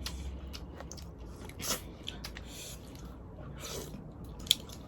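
Close-miked eating sounds of boiled seafood being bitten and chewed, with a few short wet crackles and a sharp click near the end.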